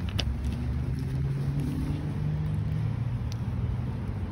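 A low, steady engine rumble with a faint hum that drifts slightly in pitch, and a couple of small clicks.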